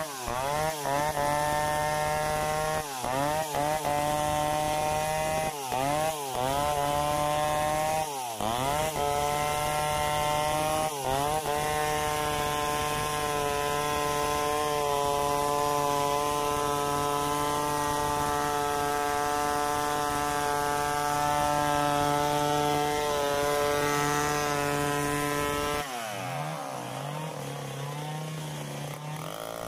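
Large 070-type two-stroke chainsaw ripping lengthwise through a hard acacia mangium log at full throttle. The revs dip and pick up again several times in the first ten seconds, hold steady through a long cut, then drop to idle near the end.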